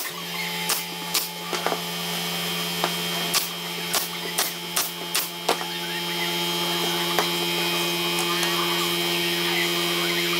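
Pneumatic brad nailer firing nails into walnut strips on an MDF panel: about a dozen sharp shots in quick succession over the first five seconds, then it stops. A steady low motor hum runs under the shots.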